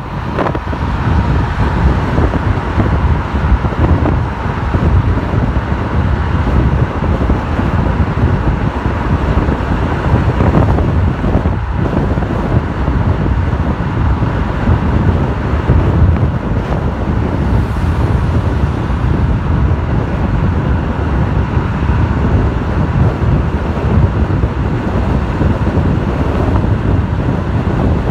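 Steady road and traffic noise from a car driving, with wind rushing over the microphone.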